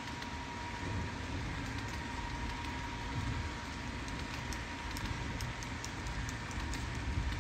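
Model freight train of loaded flatcars rolling past on the layout track: a steady rushing hiss and low rumble from the wheels, with faint ticks as they click over rail joints, more of them in the second half. A thin steady whine sits under it throughout.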